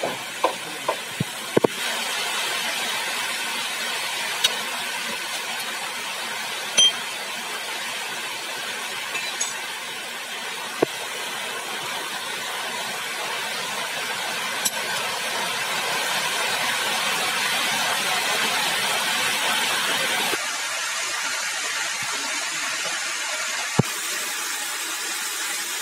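Old engine oil draining from a Bajaj DTS-i motorcycle engine's sump drain hole into a steel bowl: a steady trickling hiss. It is broken by a few sharp metallic clinks, several in the first two seconds and then single ones spread out.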